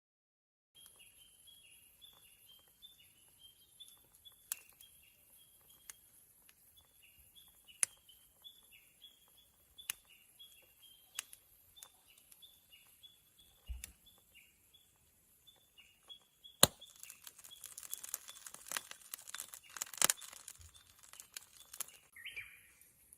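A bird repeating short, falling chirps over and over, while grilling oysters give sharp pops every second or two. For the last several seconds they break into dense crackling and sizzling.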